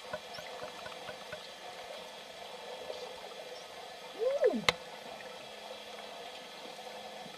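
Underwater sound among bottlenose dolphins: a steady water hiss with faint scattered clicks, and about four seconds in one short, loud call that rises then falls in pitch, ending in a sharp click.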